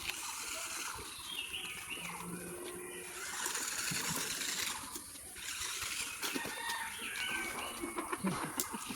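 Short wavering high-pitched animal calls, twice, over a steady background hiss, with a few light knocks near the end.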